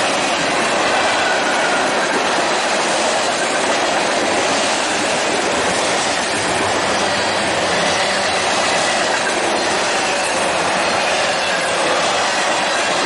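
Freight cars of a mixed train (tank cars, covered hoppers, autoracks) rolling past close by: a loud, steady noise of steel wheels running on rail.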